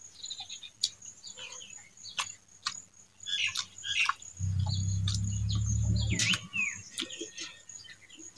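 Close-miked eating sounds of rice and saag eaten by hand: wet chewing, lip smacks and sharp mouth clicks with short squeaky smacks. A steady faint high whine runs underneath, and a low hum comes in from about four and a half to six seconds in.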